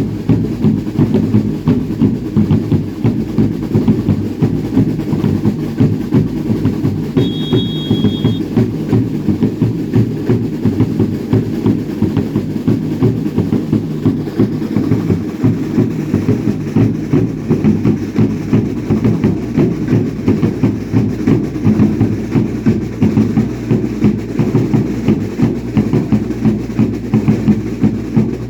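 Dance drums beating a steady, even rhythm for a Baile Indio troupe, with a brief high whistle about seven seconds in.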